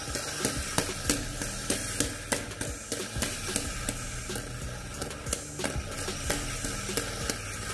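A CD mounted on a fidget spinner being flicked by hand to spin it fast: sharp, irregular clicks of fingers striking the disc, about two to three a second.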